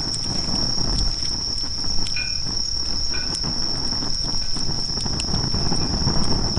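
Insects, like crickets, trilling steadily as one unbroken high tone, over the scattered pops and crackles of a wood campfire.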